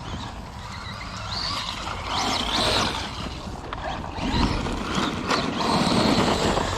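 RC car running on a 3D-printed ASA plastic spur gear, driven hard: its drivetrain whine rises and falls with the throttle, over a steady rushing driving noise with a few sharp ticks.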